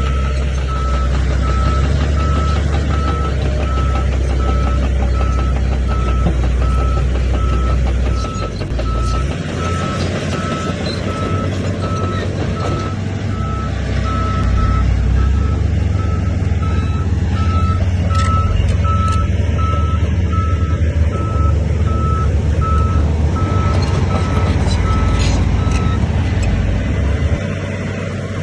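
Reverse alarm of heavy earthmoving machinery beeping at a steady, even rate over a loud, deep diesel engine, which changes load several times. The beeping stops a couple of seconds before the end, and the engine eases off just after.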